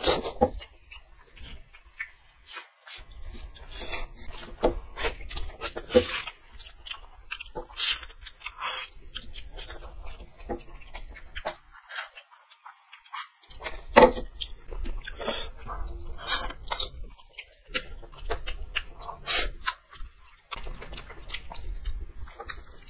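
Two people eating instant noodles straight off plates with no hands: close-up slurping and chewing in many short, irregular sounds, with a brief lull about halfway through.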